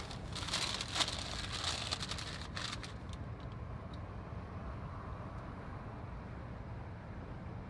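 Steady low road and engine rumble inside a moving car's cabin. Over the first three seconds or so, a paper burger wrapper crinkles, then a few faint ticks follow.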